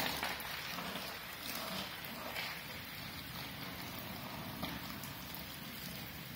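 Steady downpour of rain falling on wet pavement and puddles.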